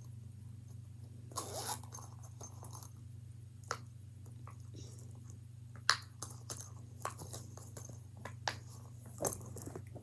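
Silicone pop-it fidget wallet being handled and its bubbles pressed: a short rustle, then scattered soft pops and clicks at an irregular pace, over a low steady hum.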